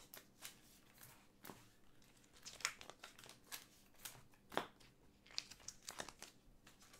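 Faint rustling and crinkling of trading cards and plastic card sleeves being handled, with scattered light clicks and ticks.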